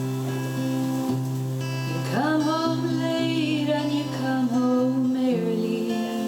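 Acoustic guitar strummed, with a voice sliding up into a wordless held note about two seconds in and trailing off near five seconds.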